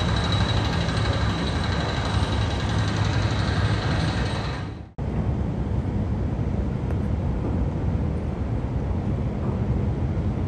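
Steady low machinery hum with a rushing noise, heard from the deck of a crude oil tanker during mooring. It cuts out for an instant about halfway through, then resumes with less hiss.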